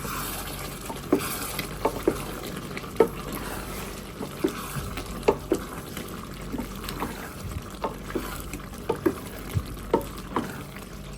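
A spoon stirring potato and capsicum sabzi in a cooking pot, knocking and scraping against the pot at irregular intervals over a steady sizzle.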